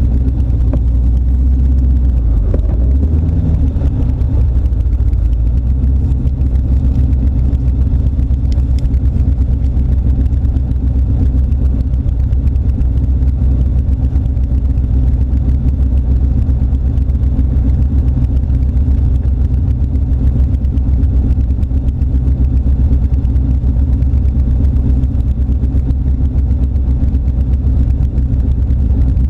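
Turbocharged LS1 V8 engine of an AC Cobra replica running steadily at low revs while creeping along in a queue, heard from the open cockpit.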